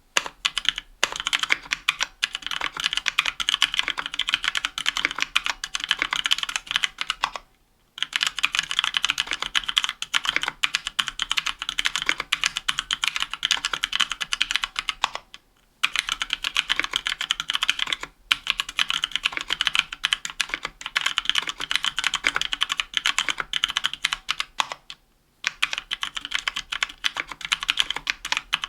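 Continuous fast typing on a 60% mechanical keyboard with Kailh Pro Purple tactile switches, an aluminium plate and GMK keycaps: dense clacking keystrokes, broken by short pauses about 8, 15 and 25 seconds in.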